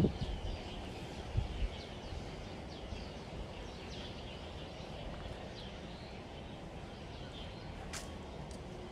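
Birds chirping with short, high, repeated calls over a steady low outdoor background rumble. A few soft thumps come in the first two seconds, and a single sharp click comes near the end.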